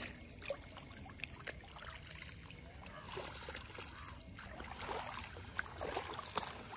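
Water dripping and splashing off a nylon cast net as it is hauled up out of shallow, weedy water, in short irregular spatters.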